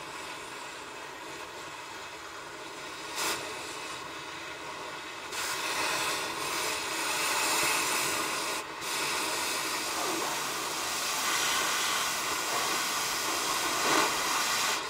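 Gas cutting torch hissing as it cuts through a brake chamber clamp bolt. The hiss gets louder and harsher about five seconds in, with a brief break near nine seconds.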